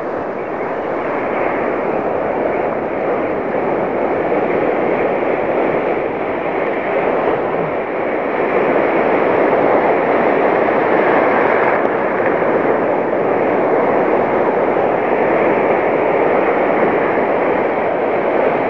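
Steady wash of breaking ocean surf, swelling slightly about eight seconds in.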